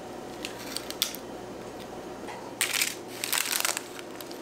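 Knife cutting through a baked dessert topped with peppermint candies, with two short crunching scrapes about two and a half and three and a half seconds in.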